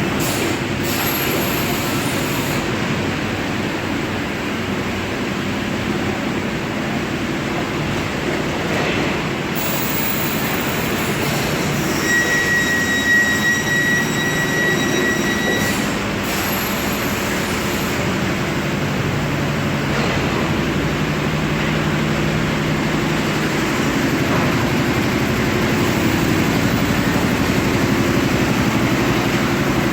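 Factory machinery running with a steady mechanical rumble and hum. A high whistling tone sounds for about four seconds near the middle, with stretches of high hiss on either side of it.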